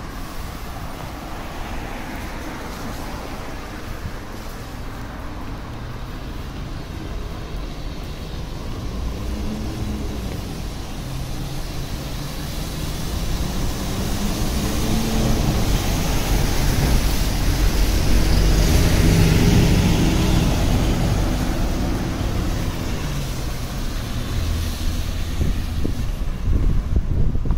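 Street traffic: an engine with tyre noise builds up, passes loudest about two-thirds of the way through, then fades as it moves away.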